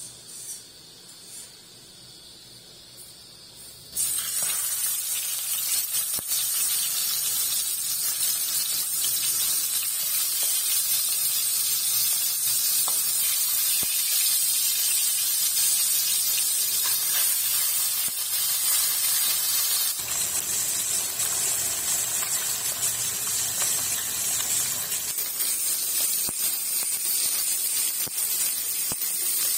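Whole pohala fish sizzling steadily in hot mustard oil in a kadai, a loud even hiss that starts abruptly about four seconds in.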